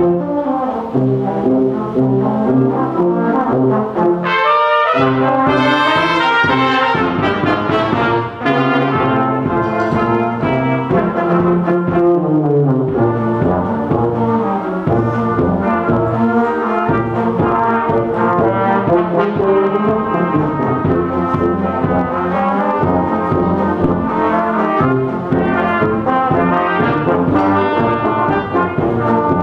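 A children's brass band of tubas, smaller brass horns and trumpets playing a slow piece, with sustained melody notes over a steady bass line.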